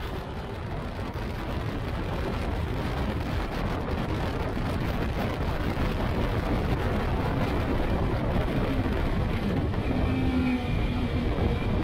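The Yamaha R1 inline-four motorcycle engine of a Phoenix R1 kit car running under way on track, heard from the open cockpit with a dense rushing noise around it.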